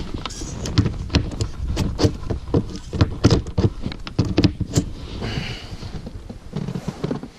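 Irregular knocks, taps and clothing rustle from gear and hands moving about in a small boat close to the microphone.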